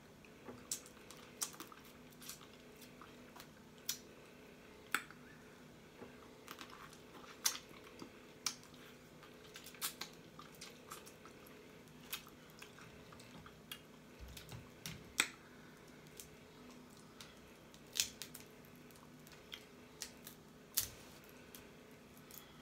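Close-up eating of blue crabs: scattered sharp clicks and cracks of crab shell being broken and picked apart, with wet chewing and lip smacking between them. A faint steady hum runs underneath.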